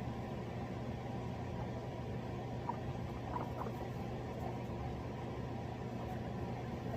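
Steady low hum and hiss of background noise, with a few faint short guinea pig squeaks about three seconds in.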